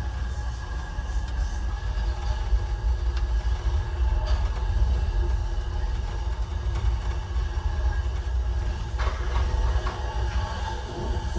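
Amtrak Coast Starlight train in motion, heard from inside the car as a steady low rumble of running gear with a couple of short rattles about nine seconds in.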